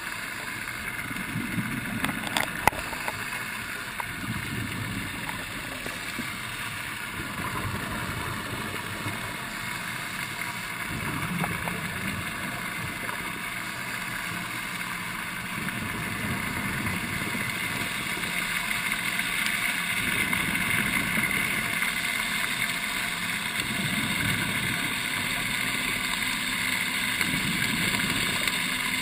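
Underwater sound on a scuba dive, heard through the camera's housing: a steady machine hum with several tones. Low rumbles come every few seconds, fitting the diver's exhaled regulator bubbles, and there are a couple of sharp clicks a few seconds in.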